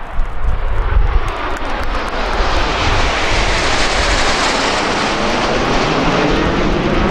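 A formation of nine Canadair CT-114 Tutor jet trainers, each with a single turbojet, flying overhead. The jet noise swells to a peak around the middle of the pass and then holds, with faint tones sliding down in pitch as the jets go by.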